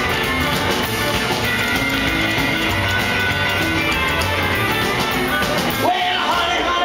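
Live rockabilly band playing a loud instrumental passage on stage piano and drums. About six seconds in, the band cuts out and the singer's voice comes in alone.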